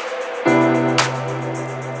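Instrumental background music: held chords with a sharp beat about once a second, and a new chord coming in about half a second in.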